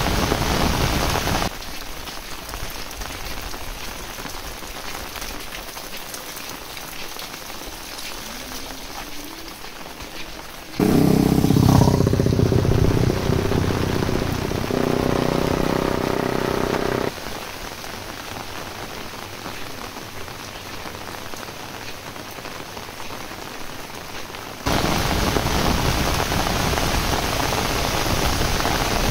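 Heavy rain falling steadily, its loudness jumping up and down abruptly several times. About eleven seconds in, a louder drone with several steady tones comes in and stops about six seconds later.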